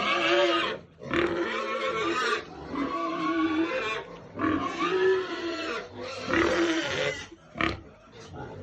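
Pig squealing in a string of long, drawn-out squeals of about a second each with short breaks between them, then two short, sharp squeals near the end: a pregnant sow squealing for food.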